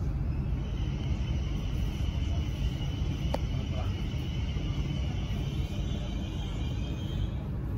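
Trenitalia Blues InterCity train heard from inside the passenger cabin as it rolls slowly into a station: a steady low rumble, with a high thin whine that sets in just after the start and fades near the end, and a single click about three seconds in.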